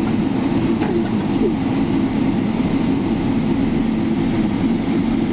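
Steady low cabin rumble inside a Boeing 777-300ER taxiing after landing, with engine noise and the airliner rolling on the taxiway.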